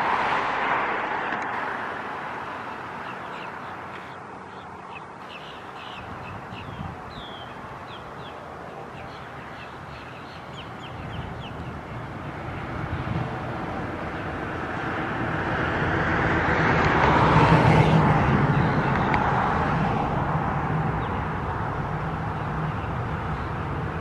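Outdoor background noise of passing traffic, swelling and fading twice: loudest right at the start and again about two thirds of the way through. Faint short bird calls chirp for a few seconds early on the quieter stretch.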